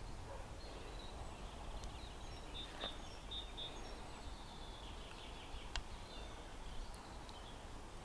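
Faint outdoor ambience: a steady low rumble with a few short, high bird chirps about three seconds in and a couple of sharp clicks.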